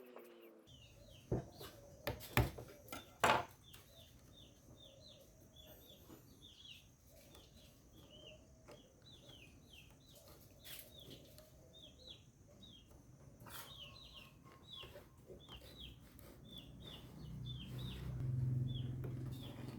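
A bird cheeping over and over, short falling chirps a few times a second, with three sharp knocks in the first few seconds. A low hum grows louder near the end.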